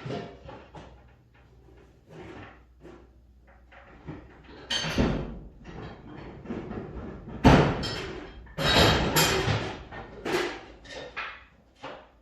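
Irregular clanks and knocks of metal tools and parts being handled, a string of separate impacts with the loudest ones a little past halfway.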